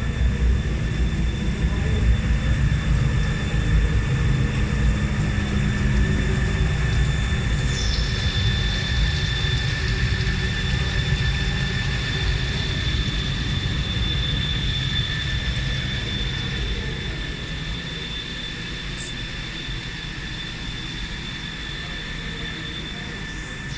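Glass washing machine running: a steady low rumble from its brush motors with a steady high-pitched whine above it, the whole sound getting quieter over the last few seconds.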